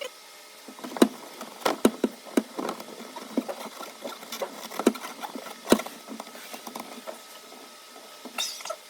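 Irregular clicks, taps and knocks of dash panels, brackets and fasteners being handled and fitted back together in a tractor cab, the loudest about one, two and six seconds in.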